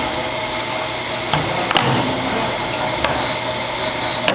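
Simco CNC-635RW CNC spring-forming machine running through a forming cycle: a steady mechanical whir with four sharp, irregularly spaced clicks as its tool slides work the wire.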